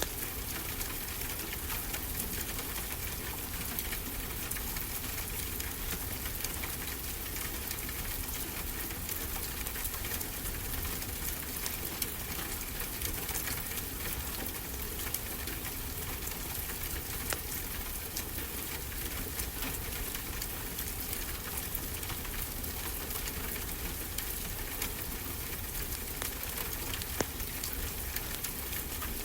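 Fireplace crackling steadily with many small snaps and a couple of louder pops, over a constant rush of ocean waves.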